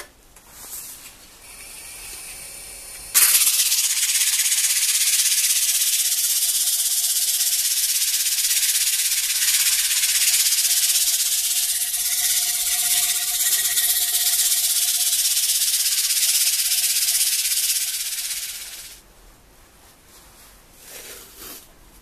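Abrasive held against a wooden disc spinning on a wood lathe: a loud steady hiss that starts suddenly about three seconds in and fades out near the end, with a faint motor hum under it.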